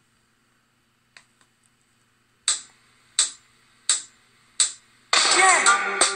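Four sharp, evenly spaced percussive ticks about two-thirds of a second apart, counting in a reggae dub plate. The riddim and vocal kick in about five seconds in.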